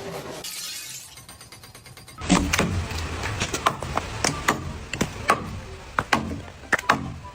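A series of sharp, irregular knocks and thuds, about two a second, over a low rumble, starting a couple of seconds in.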